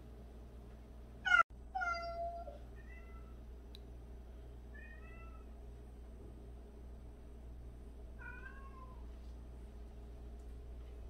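Domestic cats meowing: one loud meow cut off abruptly about a second and a half in, then four or five shorter, quieter meows spread through the rest, over a low steady room hum.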